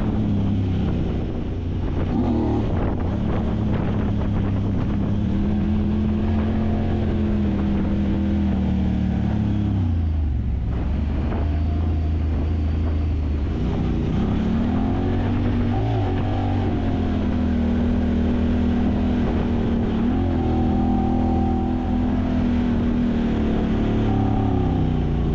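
Side-by-side UTV engine running under way, its pitch rising and falling with the throttle, including a drop about ten seconds in.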